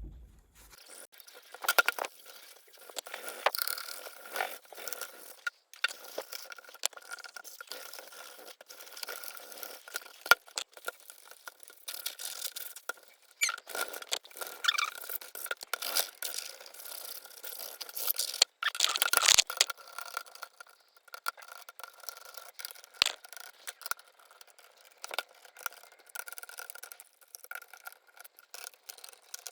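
Cloth wiping and rubbing over a laptop's plastic casing: irregular scraping and squeaky strokes with a few sharp clicks, over a faint steady high tone.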